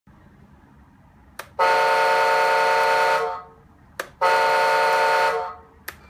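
Horn sound from the JDM-98 RC bulldozer's built-in sound system, played through its speaker: two steady horn blasts of about a second and a half each, each preceded by a short click.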